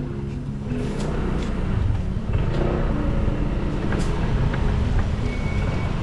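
Motorbike ride through road traffic: engine and road noise with a dense, steady low rumble. Background music fades out in the first second.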